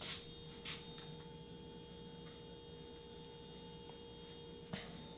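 Faint steady electrical hum and buzz, with two soft clicks in the first second and a sharper click near the end.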